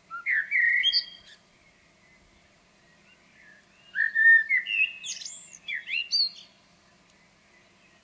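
Eurasian blackbird singing: two separate song phrases, each opening with low fluty notes and ending in higher squeaky notes. The first comes right at the start, the second about four seconds in, with a pause between.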